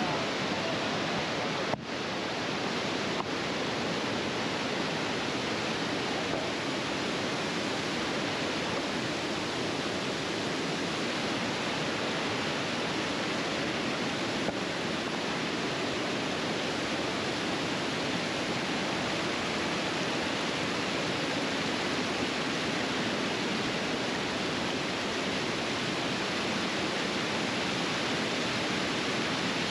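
A waterfall's water rushing, a steady, unchanging hiss-like noise.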